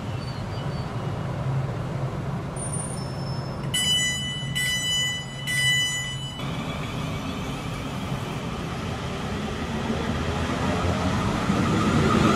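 Siemens Desiro electric multiple unit standing with a low steady hum, then its door-closing warning sounds as three beeps about four seconds in. The train then moves off, its traction motors rising in a whine that grows louder.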